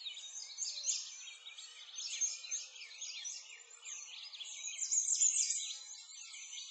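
A busy chorus of small songbirds chirping and twittering, many quick high calls overlapping one another.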